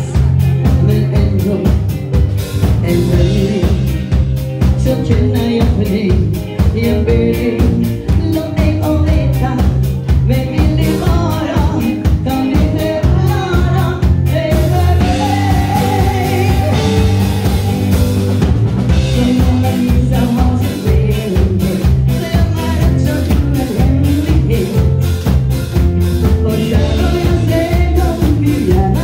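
A woman singing a pop song live into a microphone, backed by a band on drum kit, bass guitar and keyboards playing a steady beat, amplified through a PA.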